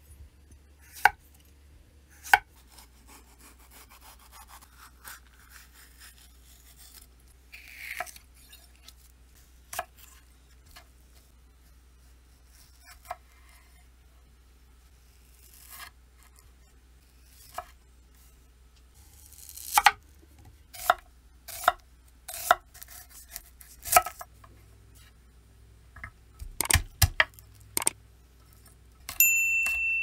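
Chef's knife slicing vegetables on an end-grain wooden cutting board: irregular sharp knocks of the blade meeting the board, sparse at first and coming quicker in the last third, with faint scraping between cuts. Near the end, a short high ding.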